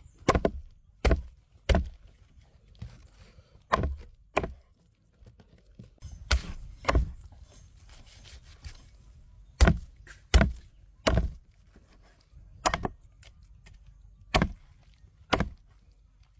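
Knife chopping on a cutting board: about fourteen heavy, separate strokes at an uneven pace, with a few short pauses between groups.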